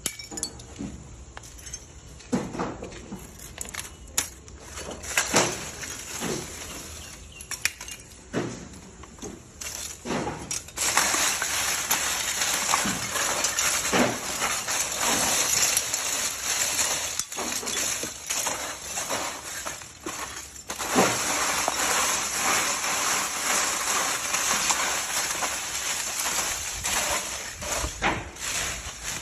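Coconut-shell charcoal being processed: scattered clinks and knocks of hard charcoal pieces, then from about ten seconds in a steady gritty rattling hiss of crushed charcoal, with a short break a little after the middle.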